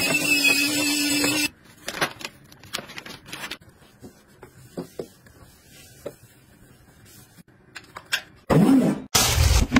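Handheld electric spin scrubber brush running with a steady hum as it scrubs, stopping about a second and a half in. Quieter rubbing and light knocks follow. Near the end a motor starts with a pitch that rises and falls, and loud scrubbing noise returns.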